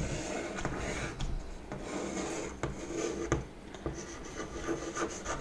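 Chalk writing on a blackboard: uneven scratchy scraping strokes broken by small sharp taps as the chalk meets the board.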